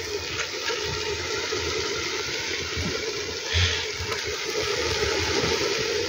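Clay pot of chicken pieces boiling over a fire, giving a steady bubbling. There is a brief knock about three and a half seconds in.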